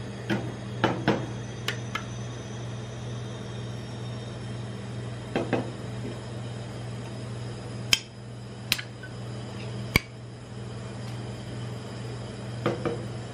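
Gloved fingers tapping and knocking an aluminium drink can on the steel cold plate of a rolled-ice-cream machine: clusters of light metallic taps in the first two seconds, a pair around the middle, three sharp single clicks later on and a few more near the end, over a steady low hum.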